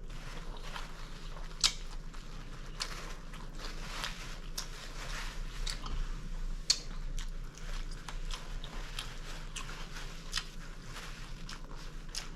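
Close-miked chewing of a crispy chicken club sandwich: a steady run of wet mouth clicks and small crunches, irregular, one or two a second.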